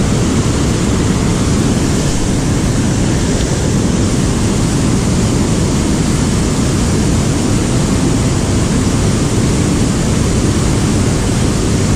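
Steady, loud rushing of river water pouring over a dam spillway and churning into whitewater.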